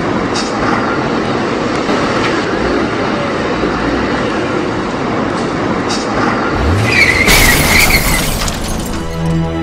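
Truck driving on the road, a steady rumble as heard in the cab. About seven seconds in a low engine note rises, then a loud screech with a hiss lasts about a second. Music begins near the end.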